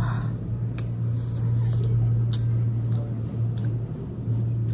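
Close-up chewing of a laccha paratha roll with chow mein: a few sharp, wet mouth clicks over a steady low hum.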